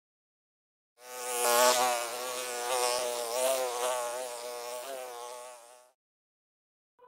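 Insect buzzing like a bee, its pitch wavering, starting about a second in and fading out after about five seconds.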